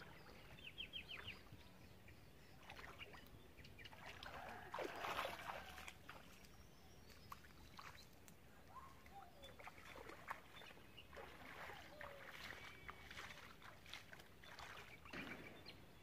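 Faint bird chirps and calls, with water sloshing around a person wading through a shallow stream, loudest about five seconds in.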